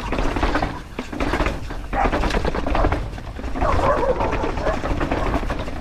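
Dogs barking over the rumble of wind and tyres on dirt from a mountain bike descending a dusty trail.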